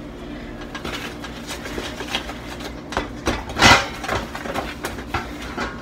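An electric mixer runs through thick brownie batter, a steady motor hum under irregular knocking and scraping of the beaters against the bowl. A louder scrape comes about three and a half seconds in.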